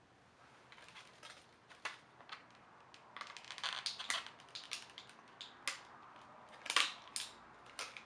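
Irregular small clicks and crinkly crackles of something being handled out of view, loudest about seven seconds in.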